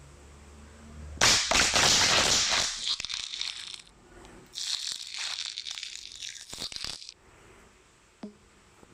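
Crackling, crinkling noise in two bursts of a few seconds each, like something being crushed or crumpled, followed by a couple of faint ticks near the end.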